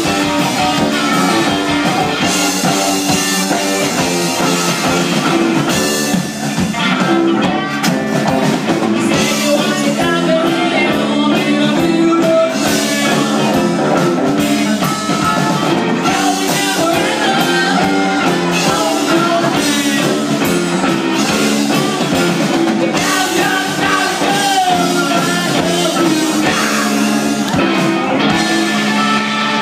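Rock band playing a song with a singer, a drum kit and guitar.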